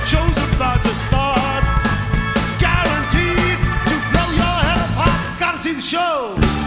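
Progressive rock band playing live: electric bass, drum kit and keyboards in an instrumental passage between sung lines, with a lead line that slides in pitch.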